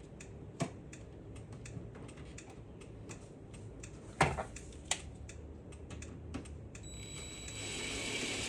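Scattered light clicks and taps of small parts and screws being handled at the shifter plate, then near the end a cordless driver whining for about two seconds as a screw is run in.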